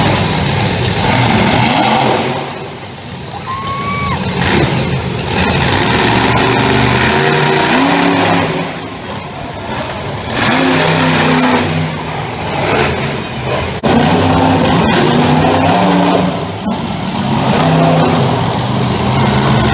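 Monster truck engines running loud, revving up and down again and again, with the sound easing off for a moment twice.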